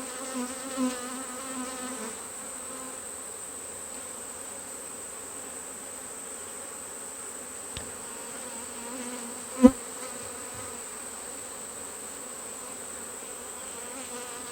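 Honeybees buzzing steadily around an open hive, with one sharp knock about two-thirds of the way through.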